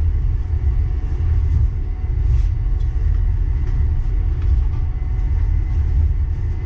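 Uijeongbu light rail car running steadily between stations, heard on board: a constant low rumble with a faint, thin steady whine above it.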